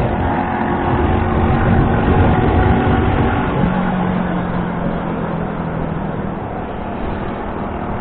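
Suzuki Shogun Pro 125 motorcycle's single-cylinder four-stroke engine running steadily under way, with a continuous rush of road and wind noise.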